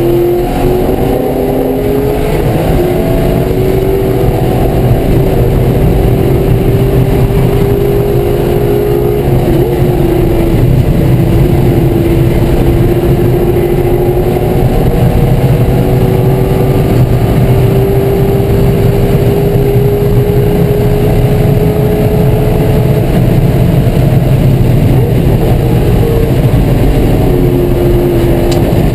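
C5 Corvette Z06's 5.7-litre LS6 V8 running hard on track, heard inside the stripped race cabin. Its pitch climbs slowly over long stretches, broken by a few sudden drops.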